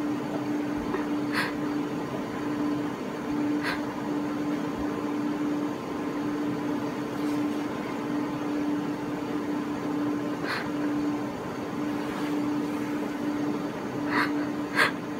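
Steady mid-pitched electrical hum with a fan-like hiss from the monitoring equipment, broken by about five brief clicks scattered through, two of them close together near the end.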